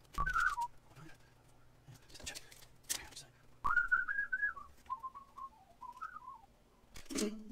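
A man whistling a short, wandering tune, a brief phrase just after the start and a longer one from about halfway through, with a few clicks and knocks from handling tools.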